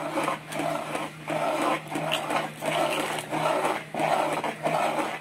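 Ladle stirring a pot of thick, cooking rice-flour batter in steady strokes, a wet swish a little over once a second, over a steady low hum. The batter is kept stirred without pause as it cooks so it thickens evenly for rice vathal.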